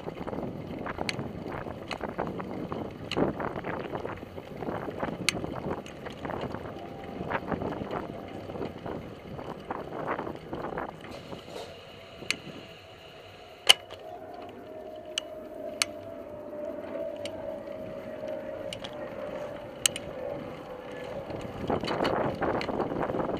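Ride noise from wheels rolling over asphalt: a rough steady rumble with sharp clicks and knocks from cracks and bumps, and wind on the microphone. Through the second half a faint whine slowly falls in pitch.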